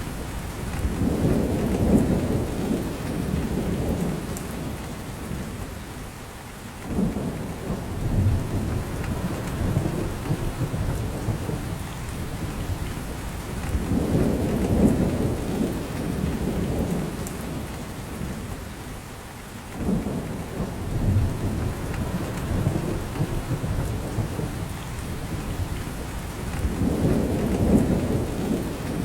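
Steady rain falling on a spruce forest, with drops falling from the branches, under low rumbling swells that rise and fade about every 13 seconds.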